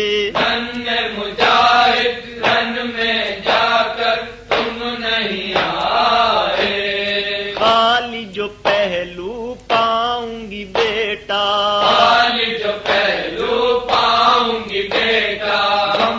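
Chanted noha, an Urdu lament, with voices singing in phrases over a steady drone that holds beneath them.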